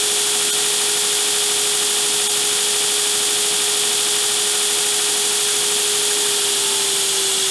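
A metal-cutting power tool running steadily: an even, strong hiss with a steady hum under it that drops slightly in pitch near the end.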